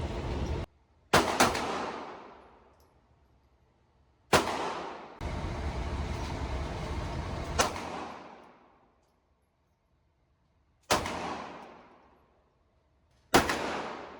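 Handgun shots being fired one at a time, about five of them roughly three seconds apart. Each sharp crack dies away over a second or two.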